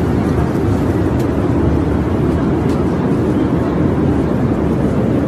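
Airliner passenger cabin noise: a steady low rumble.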